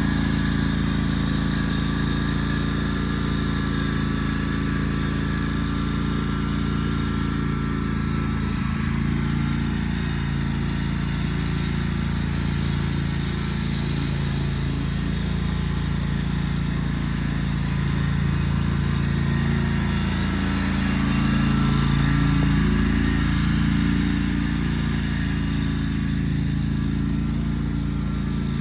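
Riding lawn mower engine running steadily while mowing, its hum wavering a little and swelling slightly about three quarters of the way through.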